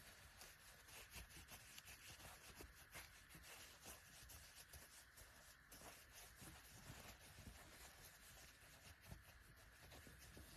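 Faint, irregular rubbing and scratching of fine-grit sandpaper worked by hand over a pocket knife's handles.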